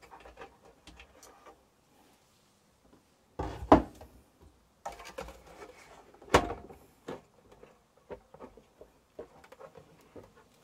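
Handling noises from a partly stripped-down air fryer being worked on: scattered light clicks and rattles of plastic and metal parts, with two louder knocks about three and a half and six and a half seconds in.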